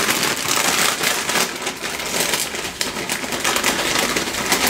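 Close-miked crunching and crackling of Doritos tortilla chips, a dense run of rapid crisp clicks.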